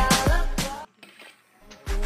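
Background music with a deep, falling bass drum beat; it drops out for about a second in the middle, then comes back near the end.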